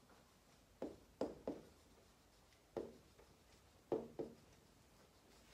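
Stylus tapping and knocking against the glass of a Prowise interactive touchscreen while handwriting is written on it: about six faint, short knocks at irregular spacing.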